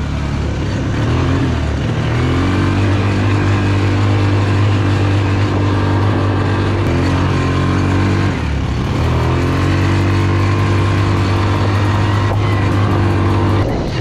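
ATV (quad bike) engine running under throttle as it is ridden. A steady engine note whose pitch climbs over the first couple of seconds, drops briefly about eight and a half seconds in, then climbs again.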